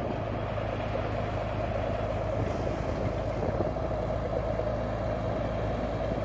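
Ruston Bucyrus 30-RB dragline's engine running steadily under load as the machine hoists its full bucket out of the water and swings it.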